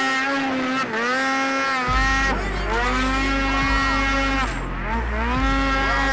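Snowmobile engine revving in repeated surges while the sled climbs through deep powder snow, its pitch rising and falling back several times.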